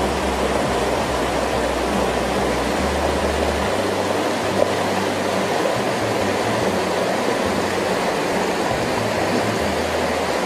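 Steady rushing of a flowing river stream.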